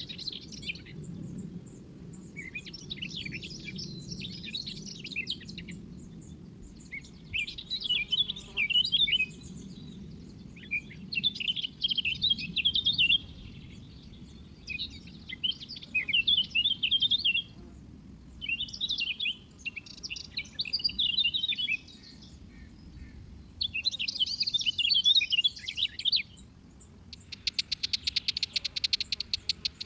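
A small bird chirping in repeated bursts of rapid, high twittering, each lasting a second or two with short pauses between. Near the end the calls turn into a fast, even buzzing trill.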